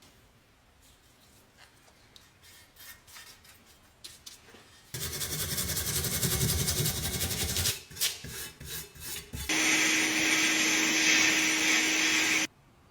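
Abrasive cleaning of an old vegetable grinder during restoration: faint scratching, then about three seconds of loud, rapid rasping, a few separate strokes, and about three seconds of loud steady abrasive noise with a low hum that cuts off suddenly.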